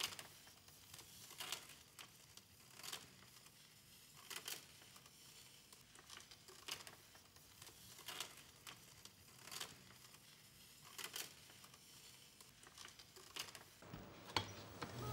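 Old film stock crackling faintly as it is unwound from a reel by hand, with a short dry crackle about every second and a half as the layers come apart. The film is dry rather than sticky.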